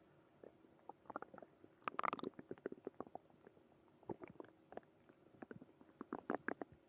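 Human stomach growling from an upset stomach: a run of small gurgles and pops, loudest in a burst about two seconds in, then scattered gurgles with another cluster near the end.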